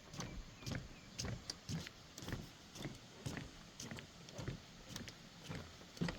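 Footsteps of a person walking at an even pace on a trail, about two steps a second.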